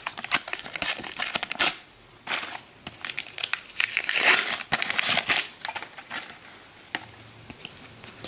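Wrapper of a Panini sticker packet crinkling and crackling as it is handled and torn open by hand, in irregular rustling bursts that die down near the end.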